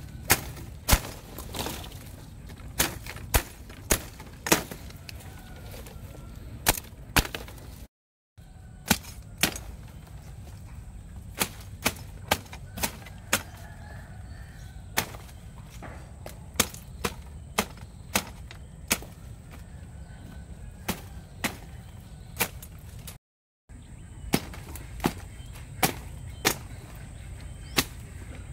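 Machete hacking through woody shrub stems: a steady run of sharp chops, roughly one or two a second, with the crack of stems splitting.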